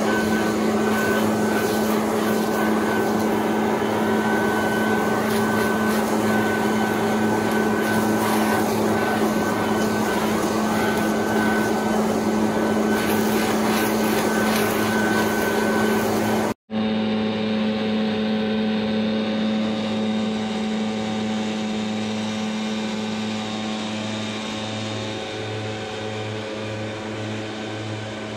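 Backpack leaf blower running steadily at full power, blowing dry leaves. It cuts out for an instant about two-thirds of the way through, then carries on slightly quieter, fading a little near the end.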